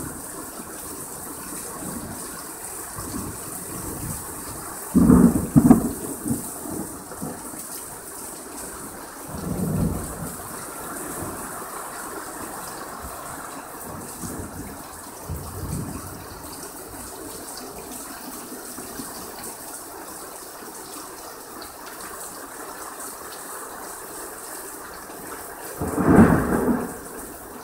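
Heavy rain falling steadily, with thunder: a loud clap and rumble a few seconds in, two fainter rumbles in the middle, and another loud clap near the end.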